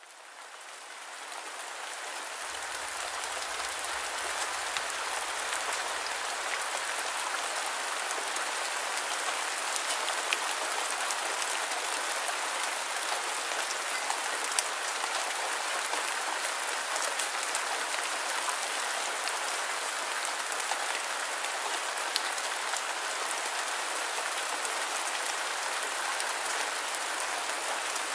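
Steady rainfall: a dense, even hiss with scattered sharper drop ticks, fading in over the first few seconds.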